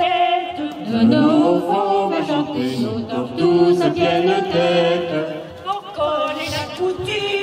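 Small group of carolers singing a cappella into microphones, several voices at once at different pitches.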